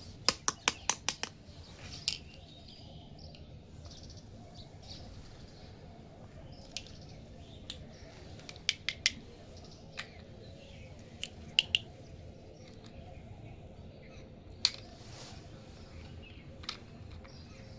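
Small plastic toy-kitchen pieces being handled, giving sharp clicks and taps: a quick run of about six at the start, then scattered single clicks and small groups of two or three.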